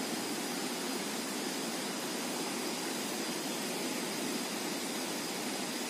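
Steady rushing of river water, an even hiss with no separate events.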